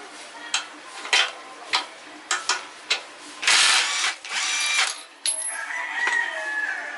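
Several sharp metal clicks and knocks, then a handheld power tool running in short bursts from about three and a half seconds in.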